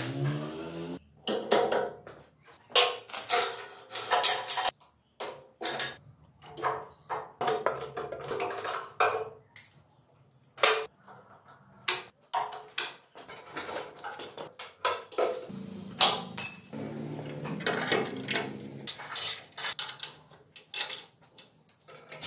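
Irregular metallic clinks and clanks of steel tools and parts: a spanner working bolts on a chain-drive differential, a roller chain rattling as it is handled onto a sprocket, and a spanner set down on the steel frame.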